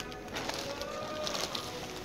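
Background music with held and gliding tones, with a couple of light clicks.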